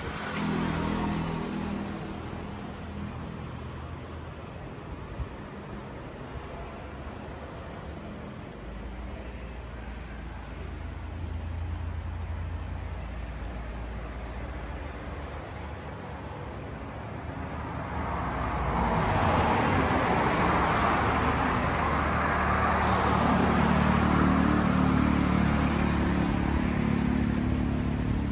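Road traffic: a low engine hum from vehicles on the road, swelling louder about two-thirds of the way through as vehicles pass close, with tyre noise that stays up to the end.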